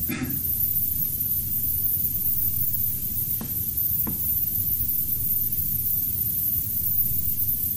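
Steady hiss and low hum of recording background noise, with two faint short knocks about three and a half and four seconds in.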